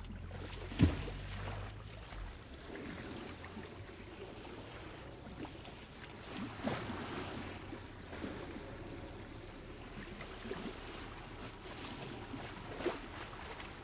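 Small waves lapping and splashing on a lake, with a sharp knock about a second in and a few fainter knocks later.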